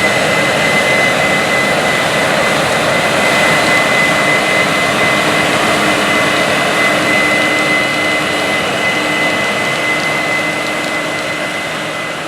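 Case IH 9240 Axial-Flow combine harvester running steadily under load, a constant high whine over its engine and threshing noise. The sound fades down near the end.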